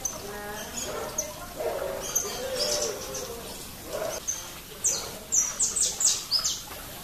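Saffron finch (canário-da-terra) calling: scattered high chirps, then about five seconds in a quick run of about six sharp, falling notes.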